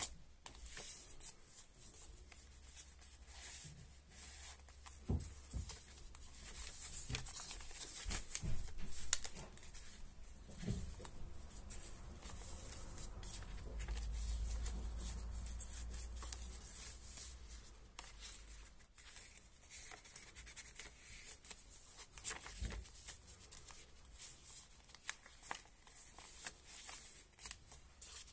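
Paper rustling and soft flicks and taps as hands turn the thick, stuffed pages of a handmade junk journal and lift its tucked cards and flaps. A low rumble lasts a couple of seconds about halfway through.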